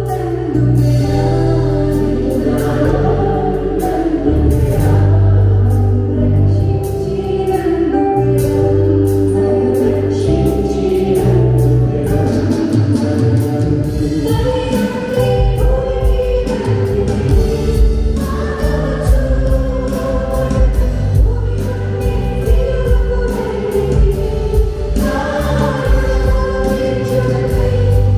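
A group of voices singing a Christian song over band accompaniment with heavy bass; a steady drum beat comes in about halfway through.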